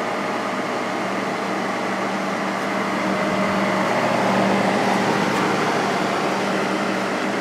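Two-speed fan motor of a Coronado Duchess 50 window air conditioner running on low speed, a steady hum with a steady tone as it comes up to speed. The motor is freshly oiled and runs smoothly, without the bearing noise it used to make on low.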